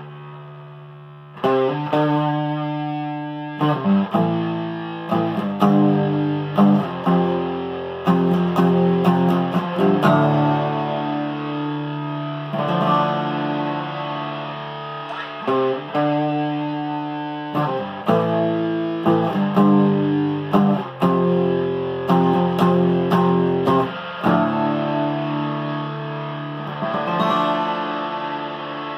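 Acoustic guitar played through a fuzz effect: distorted, slow doom-rock chords, each strummed and left to ring before the next strike.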